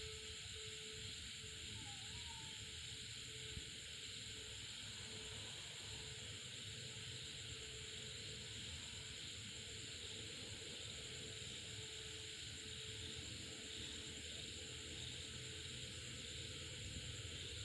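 Faint, steady background hiss with a low rumble underneath; no distinct events.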